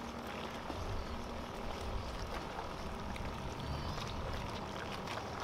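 Steady waterside background noise with a fluctuating low rumble, and a few faint clicks in the second half.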